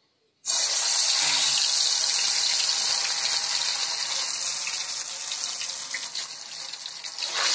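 Hot oil in a kadai sizzling as dollops of mashed potato mixture are dropped in to deep-fry. The sizzle starts suddenly about half a second in, eases a little, then surges again near the end.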